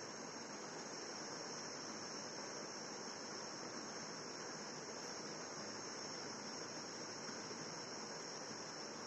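Steady electronic hiss with a constant high whine: the recording's noise floor, with no distinct sound events.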